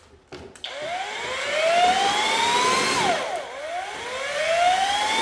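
Handheld electric paddle mixer running, its motor winding up in pitch from about a second in, easing off around three seconds, then winding up again and easing off near the end. The paddle is spinning in a bucket of water, cleaning off the cornice cement.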